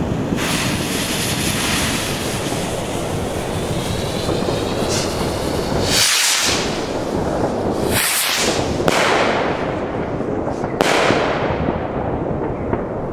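Two Weco ball-head fireworks rockets going off, with hissing launch rushes about six and eight seconds in and shorter rushes after them, over a constant loud rushing noise.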